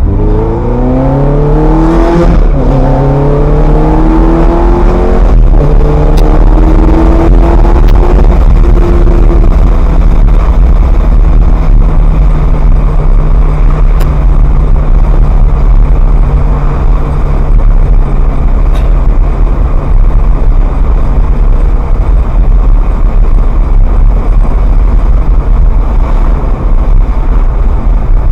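Ferrari F430's V8 engine accelerating through the gears, its pitch rising and dropping at two upshifts in the first few seconds, then running at a steady cruise.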